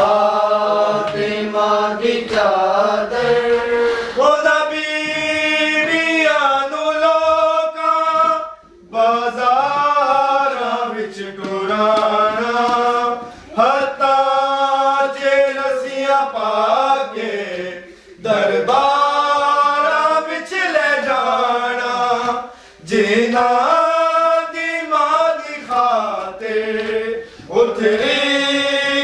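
Male voices chanting a Punjabi noha, a Shia mourning lament, in long melodic phrases with short breaks between them.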